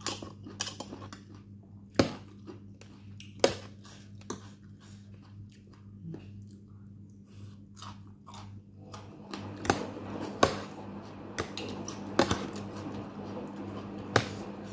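Close-up chewing and crunching of som tam (Thai pounded salad) mixed with thick noodles, getting denser in the second half. Sharp clicks come now and then, like metal forks striking the plate.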